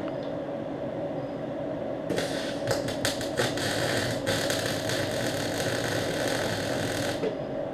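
Steady mechanical hum, with a quick cluster of sharp knocks or clicks from about two to four seconds in.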